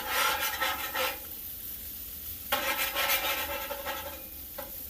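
Spatula scraping and stirring food across the steel top of a Blackstone flat-top griddle: two bouts of quick strokes, about a second each, one at the start and one about two and a half seconds in, with the food sizzling underneath.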